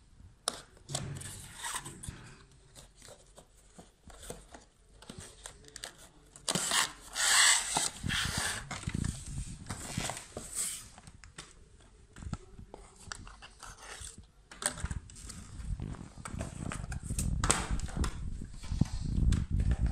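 A cardboard toy box and its plastic packaging being opened and handled: rustling, clicks and tearing, with a loud burst of crinkling about seven seconds in. From about two-thirds of the way through, low rumbling and knocks as the die-cast toy motorbike is moved about on the hard floor.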